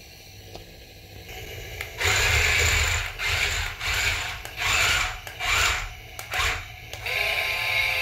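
Toy remote-control tank's electric motors and plastic gearbox whirring and its tracks clattering as it drives on a hard tiled floor in a run of short stop-start bursts. About seven seconds in, a steadier sound with several held electronic tones takes over.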